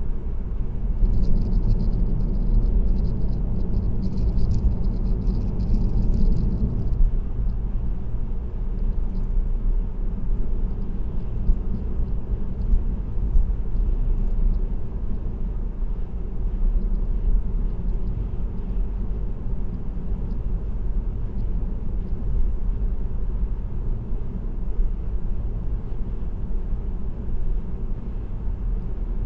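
Steady low rumble of tyres on the road and engine running as a car cruises on an expressway. It is louder for several seconds near the start, with a crackling hiss added, then settles to an even drone.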